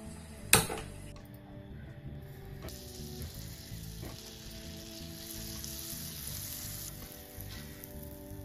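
A single sharp click about half a second in as a gas lighter is sparked at a stove burner. Then butter sizzles steadily as it melts in a hot grill pan, a high hiss that starts about two seconds in.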